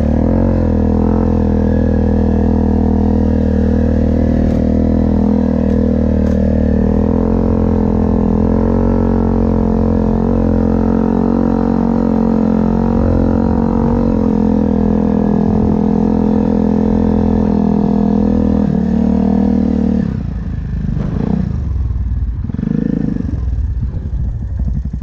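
Yamaha Grizzly ATV's single-cylinder four-stroke engine running steadily as the quad is ridden, its pitch rising and falling a little with the throttle. About 20 seconds in the engine note drops away and the sound turns quieter and uneven.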